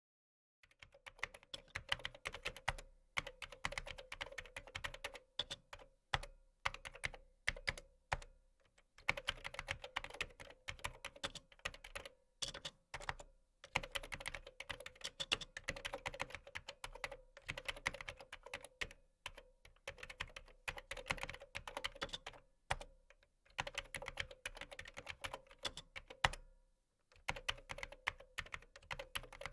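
Typing on a computer keyboard: rapid runs of key clicks with short pauses between them.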